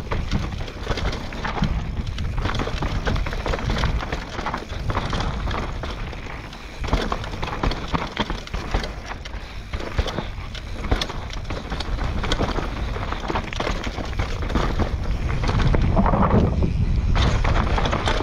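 Mountain bike descending a rough downhill trail: tyres running over dirt and rocks with frequent knocks and rattles from the bike, and wind rumble on the microphone. The noise grows louder near the end.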